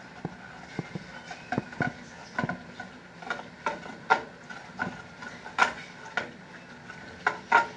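Irregular clicks and light knocks of kitchen utensils working at a pot, about a dozen over several seconds, over a faint steady hiss.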